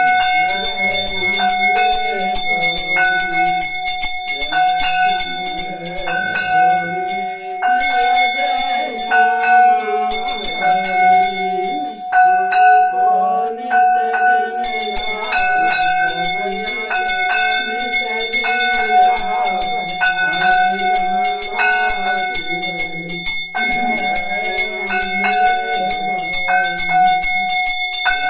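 Puja bell ringing continuously for aarti, with a melody beneath it. The bell stops for about three seconds midway, then rings on.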